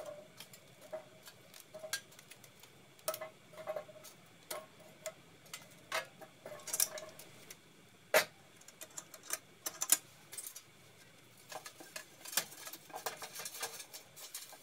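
Scattered sharp metallic clicks and clinks, some with a brief ring, as a cast-iron Dutch oven is set down in a steel fire drum and hot charcoal briquettes are laid on its lid with metal tongs.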